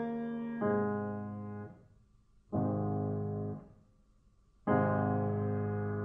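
Piano music: slow, sustained chords held about a second each, with short near-silent pauses between them.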